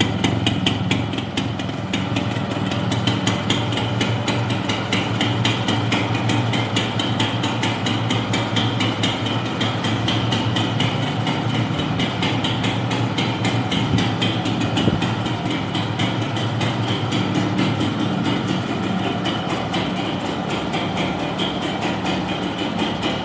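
Yamaha YB 100's single-cylinder two-stroke engine idling steadily, with a fast, even beat.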